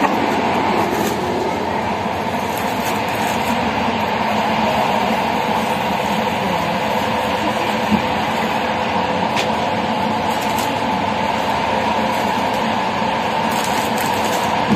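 Passenger train running, heard from inside a coach: a steady rumble of wheels on rail with a steady hum, and a single sharp click about eight seconds in.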